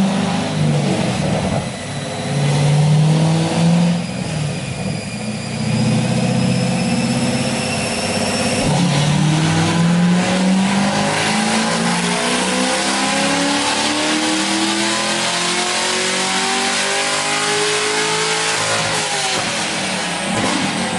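V8 car engine on a chassis dyno. It revs in short spurts at first, then about eight seconds in it makes a full-throttle pull in gear, its pitch rising steadily for about ten seconds before the throttle is let off near the end.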